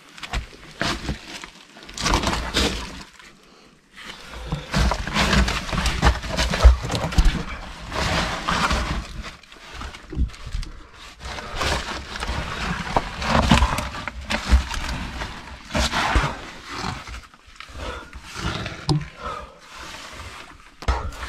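Loose stones and dry leaf litter crunching and scraping underfoot as someone clambers through a narrow concrete-and-rock passage, in uneven bursts with short pauses, along with the knocks and rustles of the camera being handled.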